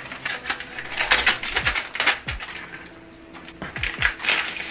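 Plastic sleeves and paper wrapping crinkling and crackling as candied-fruit skewers are unwrapped by hand, in quick irregular crackles.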